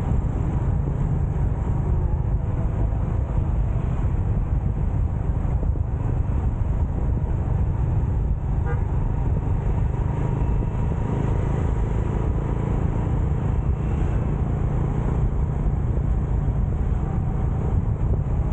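Steady low rumble of wind and road noise from a moving motorcycle, with faint passing traffic. The level barely changes throughout.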